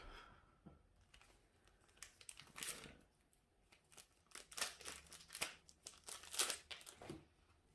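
Foil booster-pack wrapper crinkling and tearing open in several short bursts.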